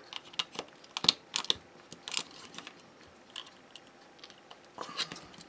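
Hands handling a wireless thermometer receiver's plastic case and working at it with a small screwdriver: scattered, irregular light clicks and taps of plastic.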